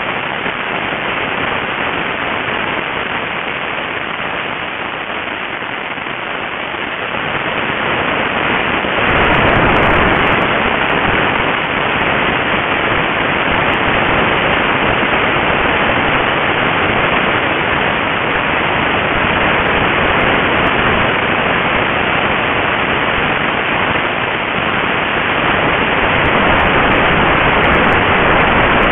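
Wind rushing over the microphone of a camera carried on a model aircraft in flight: a steady hiss with no distinct tones. It grows louder and heavier about nine seconds in.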